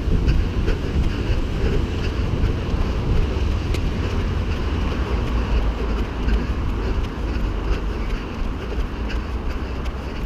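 Wind rumbling steadily on the microphone of a camera carried on a run, with faint footfall ticks underneath.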